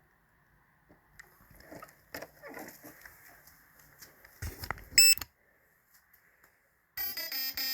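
Handling clatter, then a short loud stepped beep about five seconds in. Near the end a run of electronic tones starts, like a little tune: the startup and arming tones of a brushless ESC, played through the windings of a Holmes Hobbies Revolver motor in an RC crawler as it powers up.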